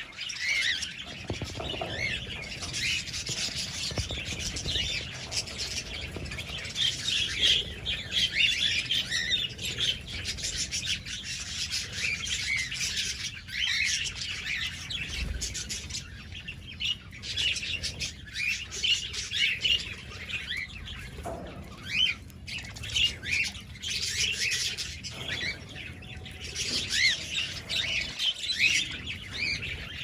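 A flock of budgerigars and cockatiels chattering, an unbroken twittering of many short chirps and squawks overlapping one another.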